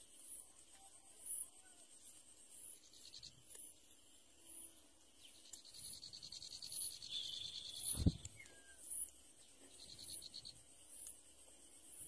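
Faint insects chirping: a short high chirp about once a second, with a pulsed buzzing trill from about five to eight seconds in and again briefly later. A single dull thump about eight seconds in.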